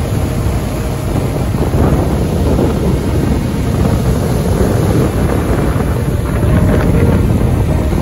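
Ocean surf breaking and washing up a sandy beach, mixed with strong wind buffeting the microphone as a steady low rumble.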